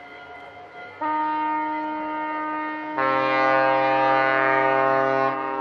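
Ship horns (typhons) blowing in greeting, steady held tones overlapping. One horn starts about a second in, and a deeper, louder horn joins about three seconds in and cuts off shortly before the end.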